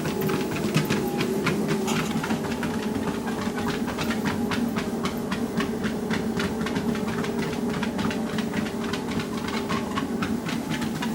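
Motorised treadmill running with a steady hum, and a dog's paws striking the belt in a quick, even rhythm as she runs on it.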